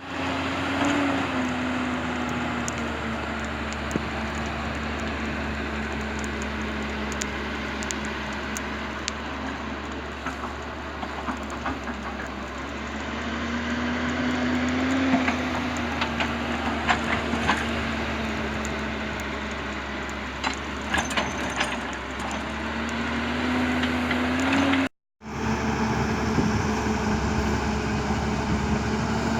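Hitachi excavator's diesel engine running steadily, its note rising and falling about three times, with scattered sharp cracks and snaps in the middle stretch.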